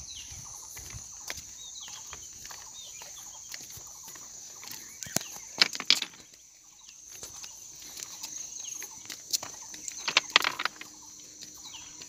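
Forest ambience: a steady high-pitched insect drone with short, falling bird calls. Two clusters of sharp clicks and knocks stand out, about five seconds in and again about ten seconds in.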